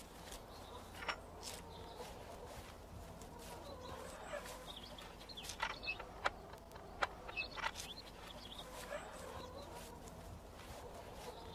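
Faint outdoor ambience with scattered bird calls, and a handful of sharp clicks and knocks about halfway through from a wooden garden gate being opened.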